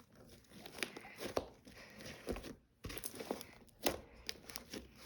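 Homemade fluffy slime being squeezed and stretched in the hands, giving scattered faint sticky crackles and pops, with a brief quiet pause a little past the middle.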